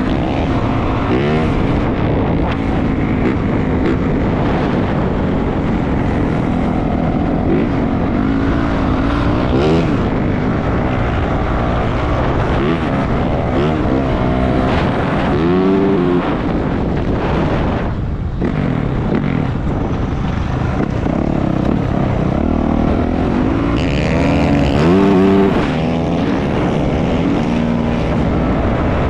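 450cc four-stroke dirt bike engine on a ride, revving up and down repeatedly as the rider accelerates and shifts, with a sharp rev about a second in, more in the middle and the loudest near the end.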